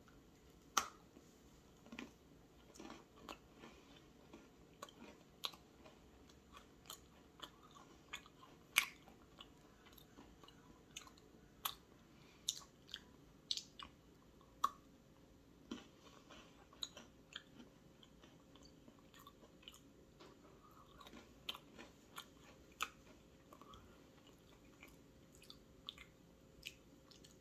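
Faint chewing of a crisp Nabisco Nilla Wafer cookie: irregular small crunches and mouth clicks, a few every couple of seconds.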